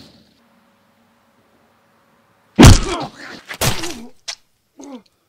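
Two heavy blows land on a man about a second apart, each followed by his pained cry. A short falling groan comes near the end.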